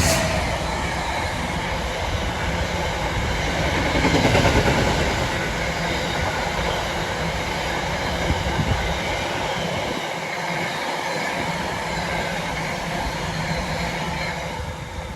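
Freight train wagons passing close at speed: a continuous loud rumble and rattle of wheels on the rails, swelling about four seconds in and fading away at the very end.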